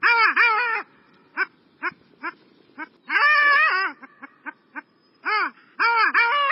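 Long-tailed ducks (oldsquaw) calling: repeated nasal, arching yodel-like notes in short phrases. A longer, wavering call comes around the middle, with short single notes between the phrases.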